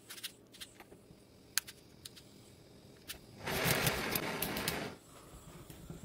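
Workbench handling noise: a few light clicks and taps, then a rustling scrape lasting about a second and a half, starting about three and a half seconds in.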